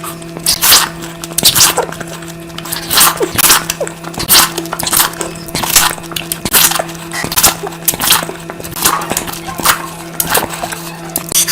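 Close-miked eating of curry: loud, wet chewing and smacking, about one sharp smack every second, over a steady low hum.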